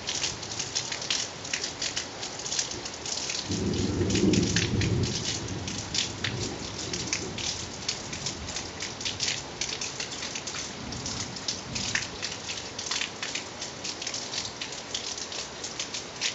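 Steady rain, with many separate drops striking close by. A rumble of thunder sets in about three and a half seconds in and lasts two to three seconds, the loudest part. A weaker rumble follows later.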